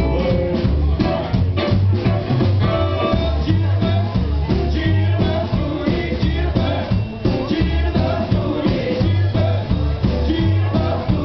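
Live jump-jive swing band playing an upbeat number: double bass stepping through a new note about every half second under drum kit, saxophone and electric guitar.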